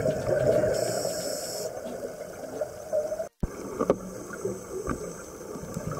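Underwater ambience picked up by a diver's camera: a steady, muffled rush of water with a few clicks. The sound breaks off for a moment about three seconds in.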